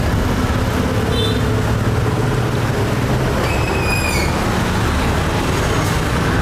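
Steady city street traffic noise, a dense rumble of passing vehicles, with a brief high-pitched squeal that falls slightly in pitch about three and a half seconds in.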